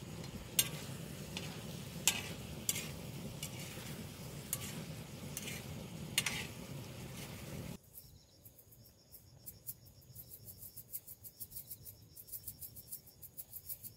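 Meat and vegetables sizzling in a round black griddle pan, with metal tongs and scissors clacking against it several times. About eight seconds in the sound cuts to a quieter bed of insects chirping in rapid, even pulses.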